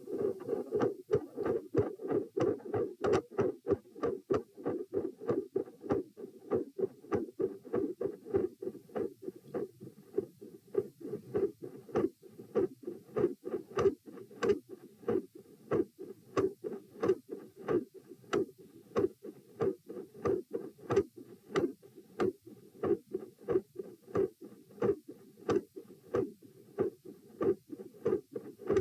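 Heartbeat picked up by a Doppler probe held on the chest: a steady rhythm of pulsing blood-flow sound with a sharp click at each beat, from a heart with several murmurs.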